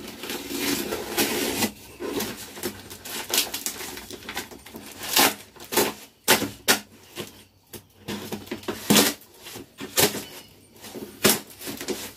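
Tough paper wrapping and packing tape on a parcel being cut and torn open by hand: a rustle for the first couple of seconds, then a long run of irregular sharp rips and crinkles.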